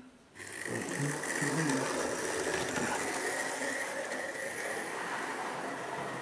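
Small geared motor of a battery-powered toy train running: a steady mechanical whirr with a thin high whine, starting about half a second in.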